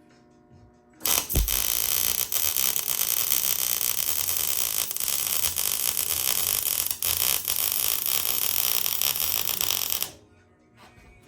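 Electric welding arc laying a bead to join a thin sheet-metal tube to thicker steel bar: a steady, loud hiss that starts about a second in, runs about nine seconds with a few momentary breaks, and stops abruptly.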